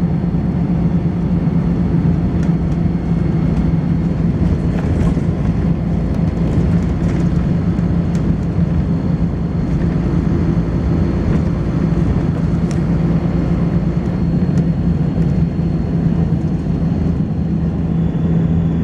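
Volvo B10BLE bus's rear-mounted six-cylinder diesel engine running steadily, with a thin, steady high-pitched whine over the low drone that stops near the end.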